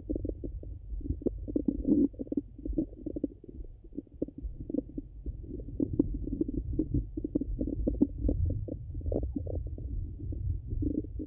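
Bowel sounds of a full stomach heard through a stethoscope: irregular short gurgles and clicks over a low rumble, the sign of active digestion after eating.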